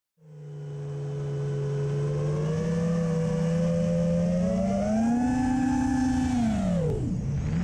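FPV quadcopter's brushless motors and propellers whining as heard from its onboard camera, the pitch following the throttle. It swells in just after the start, rises about five seconds in, falls sharply about seven seconds in, then climbs again.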